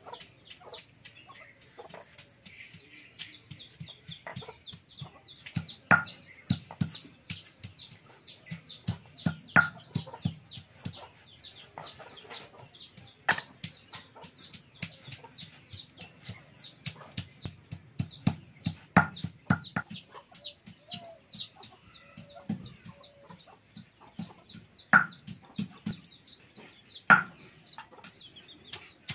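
Chickens clucking now and then, loudest in a handful of short calls, over a near-continuous run of small knocks and clicks from hand food preparation: garlic crushed with a stone on a wooden board and long beans chopped with a knife.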